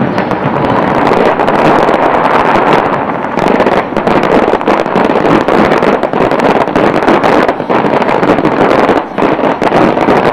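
Fireworks going off in a dense, continuous barrage of rapid crackles and bangs, with wind buffeting the microphone.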